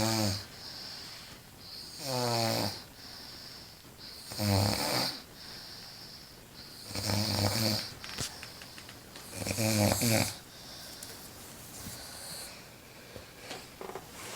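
A woman snoring loudly while asleep: five rattling snores about every two and a half seconds, with a high hiss between them, stopping about ten seconds in.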